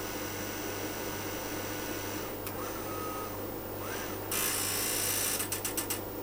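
Cipher 5210XT QIC tape streamer mechanism moving the tape. A faint click and a brief whine come first. Then, about four seconds in, a loud hissing whir starts and breaks into a quick run of pulses near the end, over a steady mains hum.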